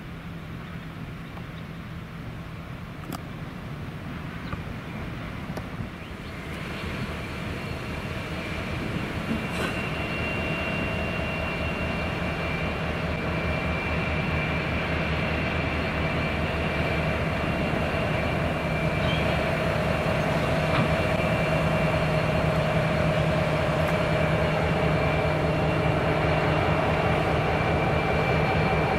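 Genesee & Wyoming Australia diesel-electric locomotives, GWA005 leading, running at shunting speed: a steady engine drone with a higher whine over it, growing louder as the locomotives draw near.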